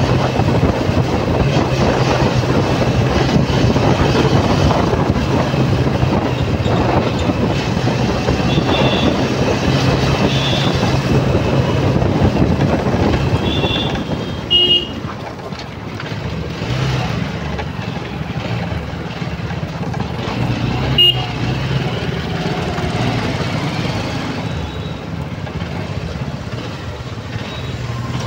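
Road traffic heard from a moving motorbike: a steady engine hum and road noise, loudest in the first half while passing a truck, then quieter. Several short horn toots from other vehicles sound through it.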